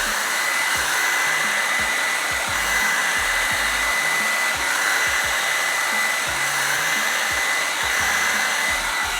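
Revlon One-Step hair dryer brush running steadily on its low setting: a constant rush of blown air with a steady high whine.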